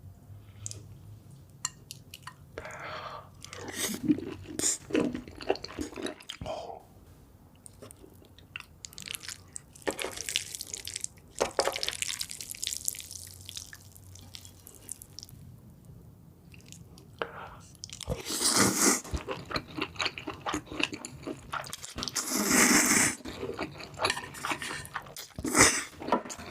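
Close-miked mukbang eating sounds: chewing and biting into spicy seafood, with crunchy, clicky bites in several separate spells and short quiet pauses between them.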